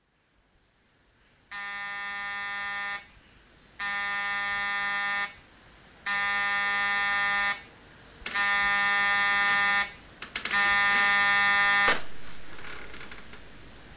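Digital alarm clock buzzer going off: five buzzes of about a second and a half each, coming every couple of seconds, each louder than the last, the last one cut off suddenly near the end.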